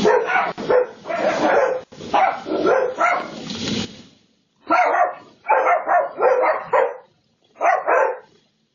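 A dog barking loudly and repeatedly: close-packed barks for the first few seconds, then a string of separate short barks.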